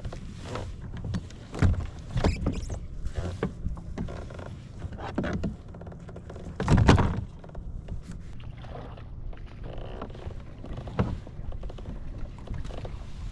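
Water slapping against a fishing kayak's hull, with irregular knocks and thumps on the boat; the loudest thump comes about seven seconds in.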